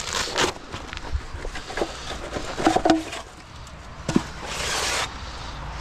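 Motorhome levelling ramps being taken out and handled: scattered knocks and clatter, with a burst of rustling about four and a half seconds in.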